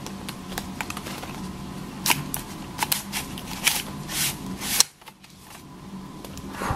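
Cardboard packaging being handled: the inner box of a Kindle Scribe slides out of its cardboard sleeve with a run of short scrapes, rustles and clicks, busiest between about two and five seconds in.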